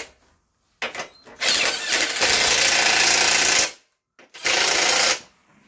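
Power driver run in two bursts, a long one of about two seconds and a shorter one near the end, tightening the bolts that hold a delivery box to a motorcycle's rear carrier.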